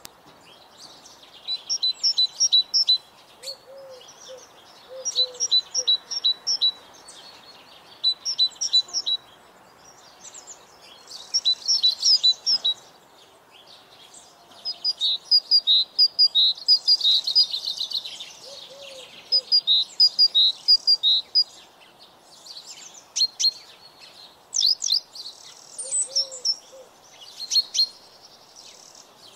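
Songbirds singing: short phrases of rapidly repeated high notes, coming every second or two with brief pauses between. A few low, short calls sound now and then underneath.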